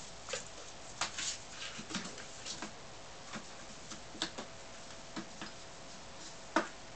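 Kittens playing: irregular light taps, scrabbles and scratches of small paws and claws on a plywood floor and cardboard, with a sharper knock near the end. A faint steady hum lies underneath.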